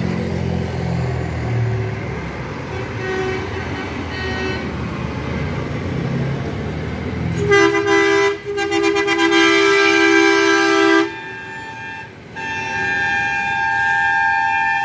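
A big truck's diesel engine rumbles as it passes close by. About seven and a half seconds in, a truck horn blares for about three and a half seconds, and after a short gap a second, higher-pitched truck horn sounds through to the end.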